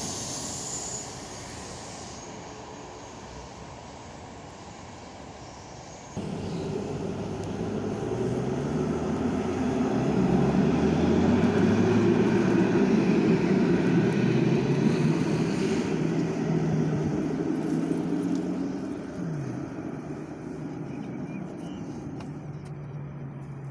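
A double-deck TGV rolls past at a distance, then a Paris T3 tram (Alstom Citadis) passes close, its traction motors whining in steps that climb in pitch over a heavy rumble of wheels on rail; the whine falls away near the end and settles to a steady hum.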